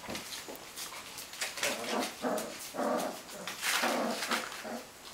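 Four-week-old Hovawart puppies yipping and whining at play: a string of short, high calls from about a second and a half in.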